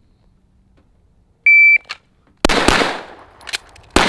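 Shot timer's start beep, one steady tone about a second and a half in, then a 9mm Glock 17 pistol firing from the draw: two quick shots about a second after the beep and a third near the end, each ringing out after the crack.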